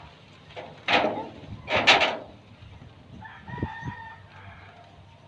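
A rooster crowing, loudest about two seconds in, with a fainter drawn-out call a little later.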